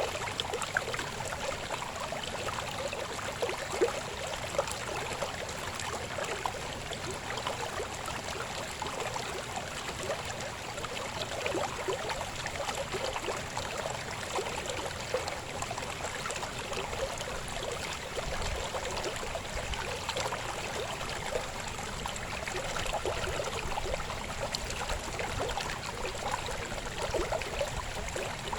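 Babbling river flowing steadily, a continuous bubbling rush of water, with a few slightly louder splashes in the first few seconds.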